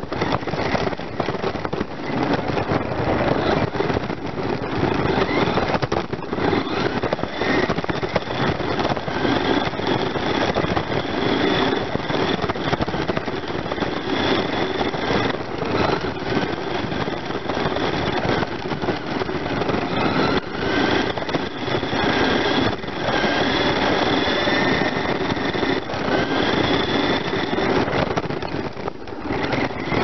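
Remote-control car driving over rough concrete, heard from a camera riding on it: a continuous rough rumble and rattle of the wheels and chassis, with a higher motor whine that glides up and down in pitch, clearest in the second half.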